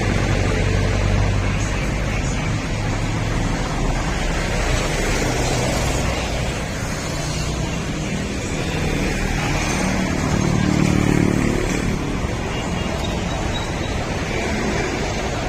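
A motor vehicle engine running, with a steady low hum that swells briefly about two-thirds of the way through.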